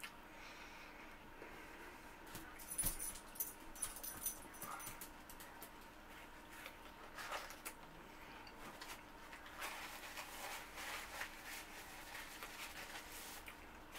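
Close-up eating sounds: chewing and mouth noises on a burger and chicken nuggets, with the burger's paper wrapper crinkling, the busiest crackling about three to four seconds in. A faint steady hum runs underneath.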